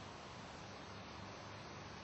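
Faint steady hiss with a low hum underneath: background noise with no distinct event.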